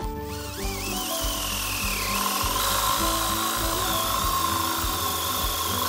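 Electric drill boring a hole into a wooden workpiece: the motor whine rises as it spins up, then runs steadily. Background music plays underneath.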